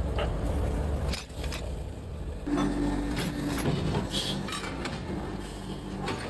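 Workshop machinery hum with scattered metallic clinks and knocks, and a brief steady tone about two and a half seconds in.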